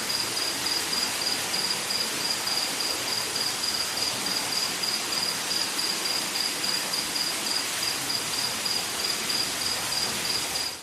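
Rainforest ambience: a dense, even hiss of insects with one high, steady chirp pulsing about four times a second, cut off by a quick fade at the very end.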